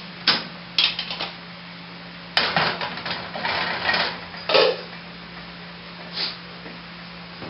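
Clicks from a gas stove knob being turned and lit, then a metal cooking pot clattering onto the burner grate and its lid knocked down on the counter, over a low steady hum.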